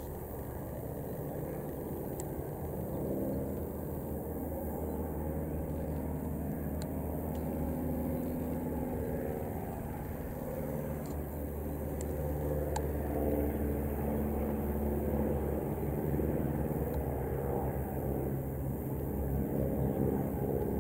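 Piston engines of vintage biplanes droning overhead during a display, the pitch slowly rising and falling as the aircraft manoeuvre, growing a little louder near the end.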